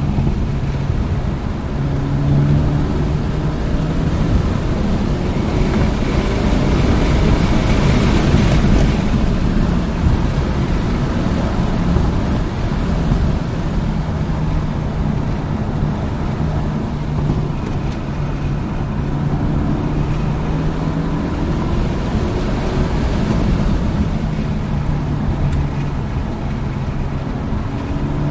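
Hyundai Elantra N's turbocharged four-cylinder engine driven hard on track, its note climbing in pitch and breaking off several times as it accelerates and shifts, over loud, steady wind and road noise.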